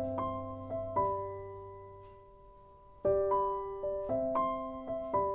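Background piano music: a gentle melody of single struck notes that ring out and fade, with a lull about a second in before the next phrase starts near the three-second mark.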